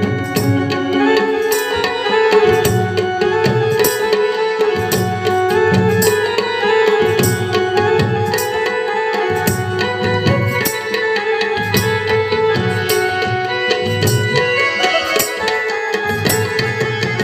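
Garba music played loud over a PA sound system: a steady hand-drum rhythm under sustained melodic instrument lines.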